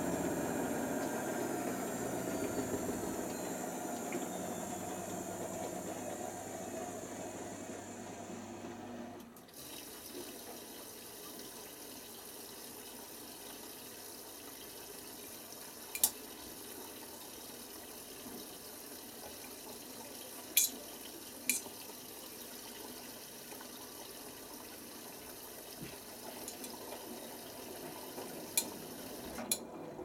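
Miele W487 washing machine's drum motor winding down at the end of the rinse interim spin, stopping about a third of the way in. Then water hisses in through the fill valves for the final rinse, with a few sharp clicks.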